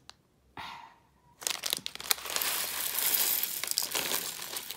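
Thin plastic baggie crinkling as tiny plastic building bricks are tipped out of it, the pieces clicking and clattering onto a wooden table. It starts about a second and a half in, after a near-quiet moment with one short rustle.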